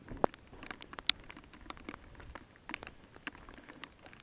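Mountain bike rattling over a rough trail: irregular clicks and knocks, with two sharp knocks in the first second or so.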